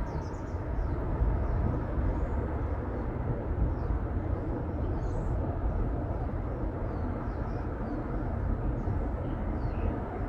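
Small birds chirping faintly and intermittently over a steady low rumble.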